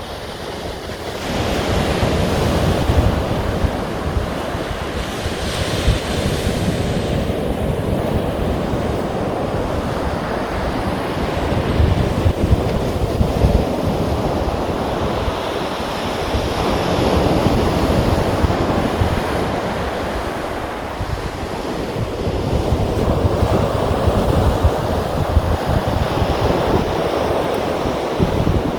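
Sea waves surging and washing ashore in a continuous rush that swells and eases every few seconds, with wind buffeting the microphone.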